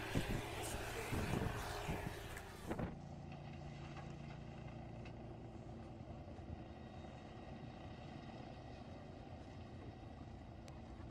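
Engine of a large rotary snow blower working through deep snow, under a loud rushing noise. About three seconds in the sound cuts suddenly to a steadier, quieter engine hum from another rotary snow blower.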